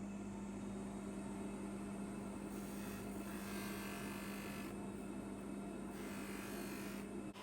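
Small electric polishing motor running with a steady hum, and a rubbing hiss that swells and fades as the watch case is worked against it to remove fine marks.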